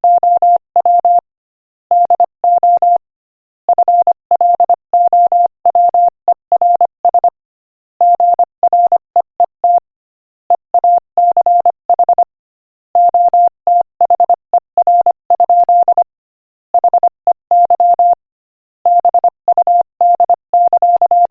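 Morse code keyed at 25 words per minute as a single steady beep tone, switched on and off in rapid dots and dashes, with short pauses between words.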